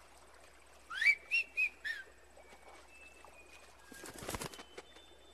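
A four-note whistled tune, a rising note followed by three short notes, then faint thin whistled tones from mockingjays. Near the end comes a brief rush like a bird's wings flapping.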